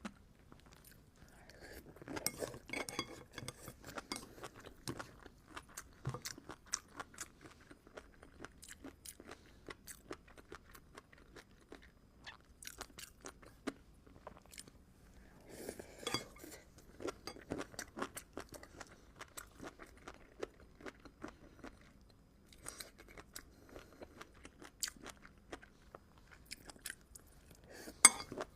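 Close-miked eating of seafood: wet chewing and crunching with many sharp crackles, louder in spells about two seconds in, around the middle and near the end.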